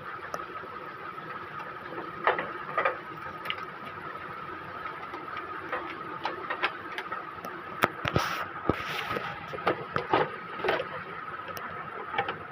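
Scattered light clicks and knocks, with a short hiss a little past the middle, over a steady faint high whine.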